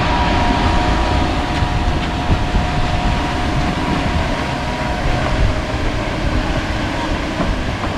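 Heavy diesel trucks and concrete pump machinery running: a steady, loud, low rumble with a high whine for about the first five seconds.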